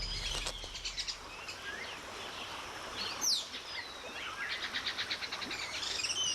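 Rainforest bird calls over a steady background hiss: several birds calling with high whistled notes, one loud sweeping call about three seconds in, and a rapid trill of repeated notes in the second half.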